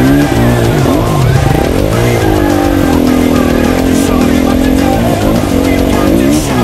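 Dirt bike engine revving up and down as it is ridden, its pitch rising and falling several times and then holding steady for a couple of seconds, with music playing over it.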